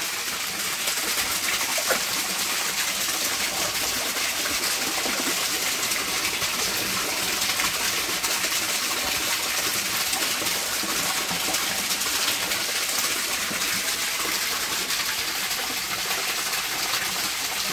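A stream of water falling from an outlet pipe into a koi pond, splashing steadily into the surface.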